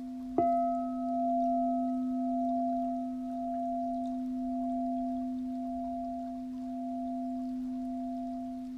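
Quartz crystal singing bowl tuned to C, ringing with a steady pure tone. It is struck again about half a second in, which adds a brief higher ring that fades over a few seconds, and the loudness slowly swells and ebbs.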